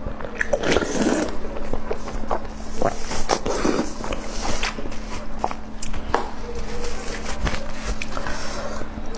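Close-miked eating sounds: irregular crunches, clicks and wet mouth noises of food being bitten and chewed.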